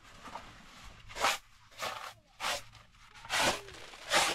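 Short hand broom sweeping across a canvas tarp: about five brisk swishes at uneven spacing.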